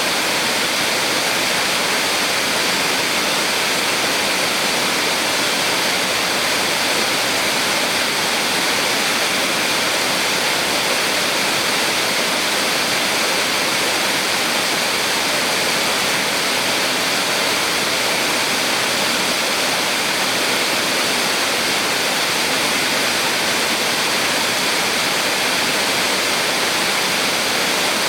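Small waterfall on a mountain stream, water falling and rushing in a steady, unbroken roar.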